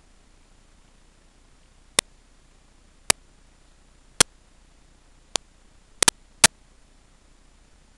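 A handful of short, sharp clicks at irregular intervals, seven in all with a quick double click about six seconds in, over a faint steady hiss.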